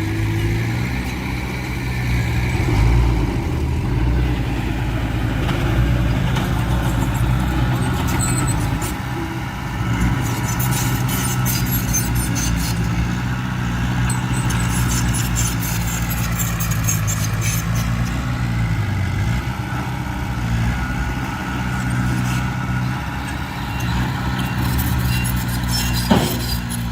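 Heavy diesel engine of earthmoving machinery running steadily, its pitch dipping slightly now and then. There are spells of rapid metallic rattling in the middle and near the end.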